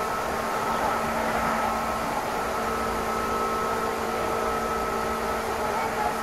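Steady running noise heard inside a Meitetsu express train car: an even rumble with a few steady humming tones, the train holding a constant speed.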